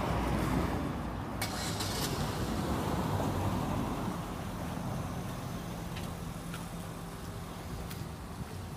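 Traffic noise from a car passing on the street, loudest over the first few seconds and then slowly fading, leaving a low steady hum.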